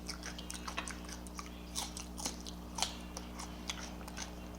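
A person chewing food close to the microphone, with small irregular mouth clicks and smacks.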